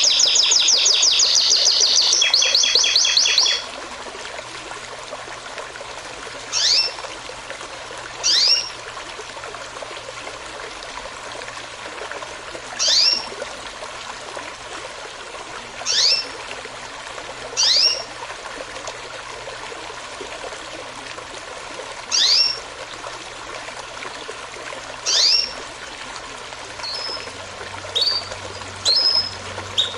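Songbirds calling over a steady running stream. A rapid high trill fills the first few seconds, then a short, sharp down-slurred call repeats every few seconds, with brief high notes near the end.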